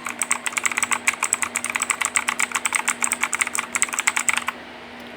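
Redragon K552 mechanical keyboard with clicky, tactile Outemu Blue switches, its keys pressed in quick succession: a rapid run of sharp clicks that stops about four and a half seconds in.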